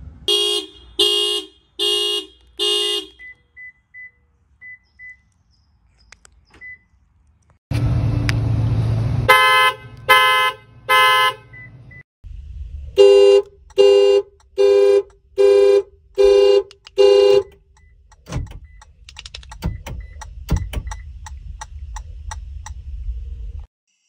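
Car alarms set off from the key fob, one car after another, each pulsing its horn in evenly spaced blasts: four blasts, a few short high chirps, three higher-pitched blasts after a burst of low rumbling noise, then six more blasts. Scattered clicks and low noise follow near the end.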